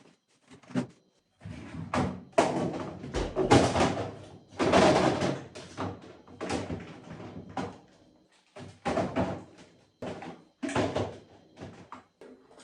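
Household items being handled, set down and shut away in a kitchen: a run of irregular knocks, thunks and clatter with a door-like slam, busiest and loudest in the first half.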